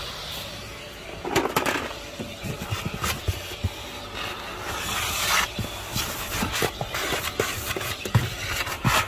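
Canister vacuum cleaner running with a steady hum, its nozzle scraping and knocking over a ribbed car floor mat in the footwell.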